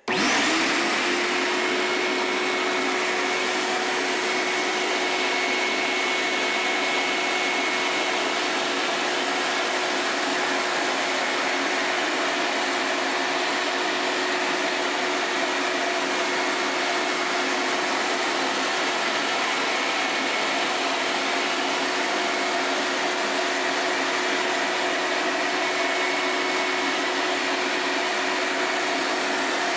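A 6-horsepower, 16-gallon shop-vac starts suddenly and runs steadily with an even hum, pulling air through its hose and a cyclone separator. The hose nozzle sucks up fine sawdust and sanding dust from a wooden tabletop.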